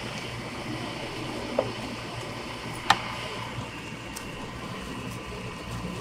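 Steady background hum and hiss of a street-food stall, broken by a sharp metallic click about three seconds in and a softer knock about a second and a half in, from a metal lever ice cream scoop working against a steel tub.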